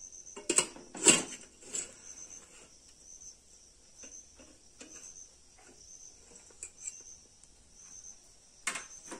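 Aluminium steamer colander and pot clanking as the steamer is lifted off the boiling pot, with a few metal knocks about a second in and one more near the end. Crickets chirp steadily in the background.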